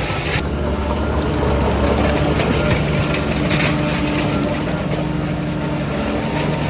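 Heavy diesel engine of earthmoving equipment running steadily at an even pitch, with short bursts of rattling clatter around the middle.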